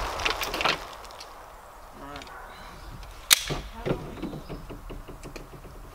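A Glock 19 firing a single 9mm shot about three seconds in, with a short echo trailing after it. At the start the echo of the previous shot is still dying away.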